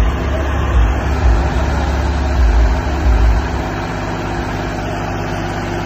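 Tractor engine idling with a steady low note. There are heavy low swells for about the first three seconds, then it settles into an even run.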